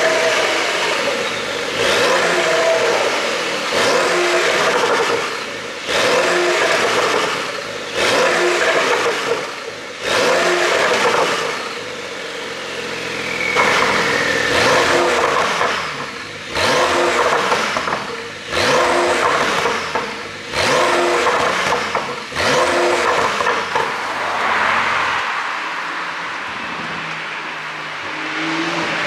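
Porsche 911 992 Carrera 4S's twin-turbo flat-six revved in repeated short blips about every two seconds. Each lift-off brings exhaust pops and crackles on the overrun.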